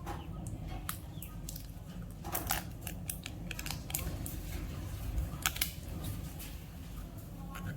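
Plastic candy wrappers and packaging being handled and unwrapped, giving scattered sharp crackles and clicks, loudest about two and a half and five and a half seconds in, over a steady low hum.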